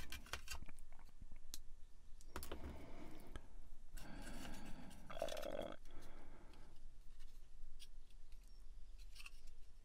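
Light clicks and rustling from small plastic model parts and plastic rod being handled and pressed together.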